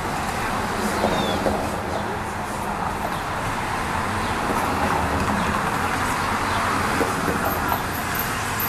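Street ambience: steady road traffic noise from passing vehicles.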